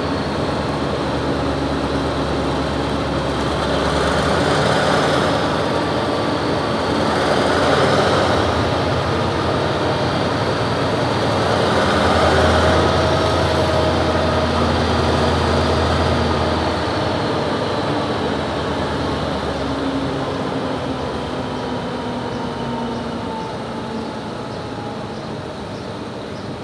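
Diesel locomotive of a stone-hauling freight train running, its revs rising and falling in a few swells, then easing and getting gradually quieter over the last several seconds.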